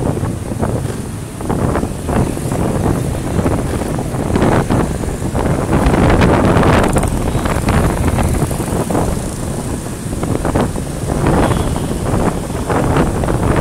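Wind buffeting the microphone of a moving motorbike in street traffic, in uneven gusts, over the running of motorbike engines.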